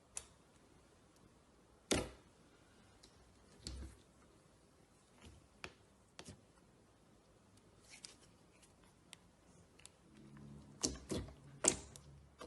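Slime being handled and squished: faint, irregular sticky clicks and pops, with a quick cluster of louder pops near the end.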